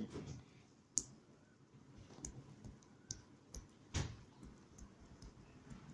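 Slime being kneaded by hand: faint, scattered sticky clicks and pops, a sharper one about a second in and another about four seconds in. The kneading sound comes through only faintly, which she puts down to a problem with the phone.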